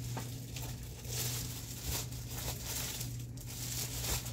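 Paper and plastic packaging of a green screen kit rustling and crinkling as it is handled, over a steady low hum.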